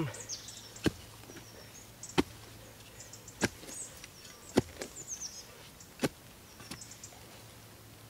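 Folding spade being jabbed down into forest soil to dig a hole: about six short, sharp chopping strikes, a little over a second apart. Birds chirp faintly in the background.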